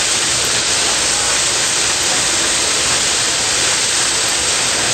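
Steady, loud hissing rush of a 1904 Metropolitan Extra First Class steam fire engine at work pumping.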